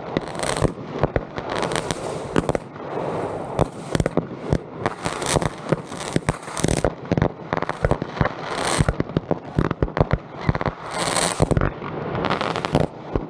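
Consumer multi-shot fireworks cake firing a rapid, unbroken run of shots: sharp bangs and crackling, with brighter hissing bursts every few seconds.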